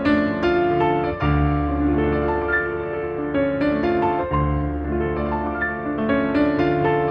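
Background music: a piano playing a flowing melody over sustained low bass notes.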